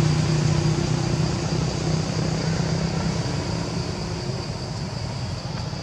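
A low, steady engine drone that slowly fades away.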